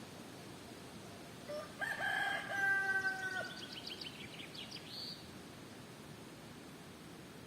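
A rooster crows once, one long held call of about two seconds, over a steady hiss of wind. While the crow fades, a small songbird gives a quick high trill that ends about five seconds in.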